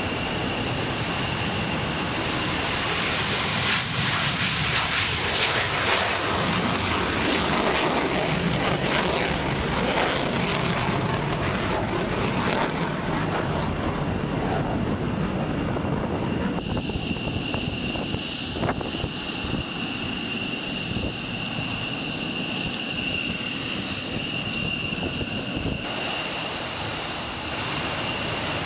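Jet aircraft engines running loud and steady on an airfield, a dense rush with a high whine over it. The sound changes abruptly about two-thirds of the way through and again near the end, as it switches to another aircraft.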